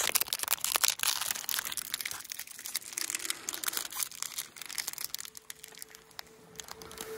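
Plastic snack wrapper being torn open and handled, a dense run of sharp crinkling crackles that thins out over the last couple of seconds.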